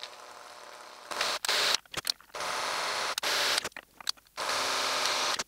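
Cordless drill running in several short trigger pulls, each about a second long, starting about a second in. It is drilling out the mounting holes of a small circuit board to fit 3 mm screws.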